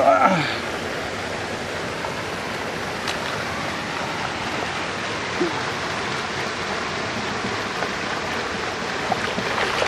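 Steady rushing water noise throughout, with a short loud voice exclamation right at the start.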